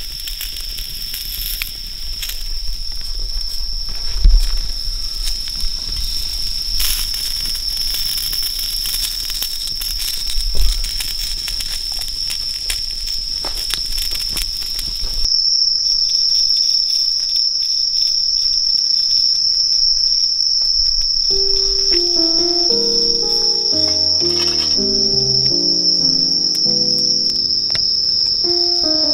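Night insects trill in one steady, high-pitched note throughout. For the first half a campfire crackles and sausages sizzle on a griddle, with two loud pops; these sounds stop about halfway through. Soft piano-like background music comes in about two-thirds of the way through.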